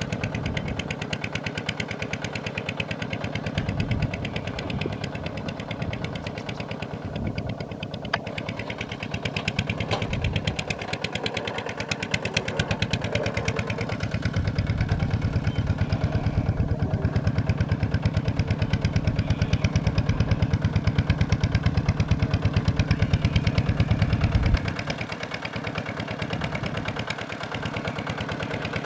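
Tractor engine running steadily with an even firing beat, louder through the middle and dropping suddenly near the end.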